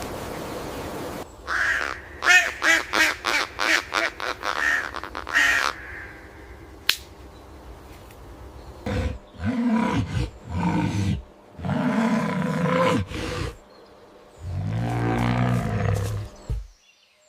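An animal calling: a quick run of short pitched calls, then several louder, lower calls ending in a long low growl that cuts off suddenly near the end.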